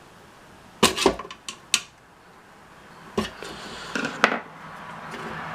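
Sharp clicks and clinks of a screwdriver worked against a power supply's case while trying to pry it open: a cluster about a second in, another near the middle, and more a second or so later.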